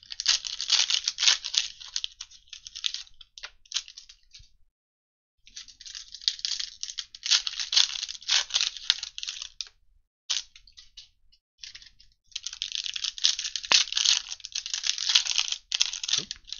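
Plastic wrappers of 2022 Prestige football card packs crinkling and tearing as the packs are opened by hand. The sound comes in three spells of crinkling, with short pauses between.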